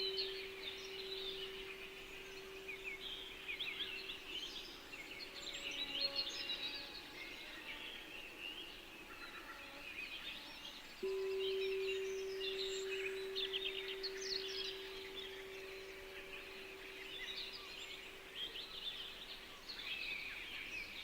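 Songbirds chirping and twittering throughout, over the ringing tone of a singing bowl. The bowl's single low tone fades away in the first few seconds, then starts again abruptly about halfway through and rings steadily on.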